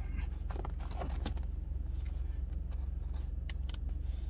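Car engine idling, heard from inside the cabin as a steady low rumble, with a few faint clicks and rustles near the start and again near the end.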